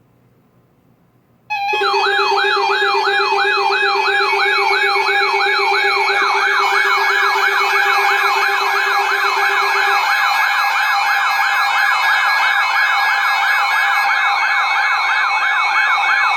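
Emergency Alert System siren-style alert tone, starting abruptly about a second and a half in: a fast wail sweeping up and down two or three times a second over steady tones, with a low steady tone under it that stops partway through. It is the attention signal ahead of a broadcast special marine warning.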